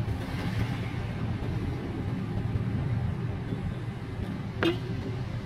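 Inside a small manual car driving on a wet road in the rain: steady low road and engine rumble with a hiss of tyres and rain. A single sharp click or knock sounds about four and a half seconds in.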